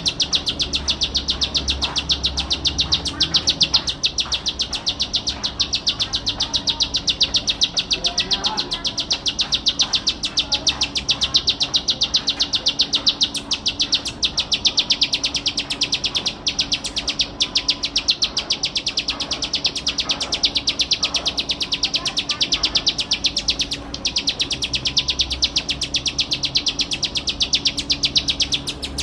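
Ciblek sawah, a small prinia, singing a long unbroken run of rapid, high chirps, many notes a second, with no pause.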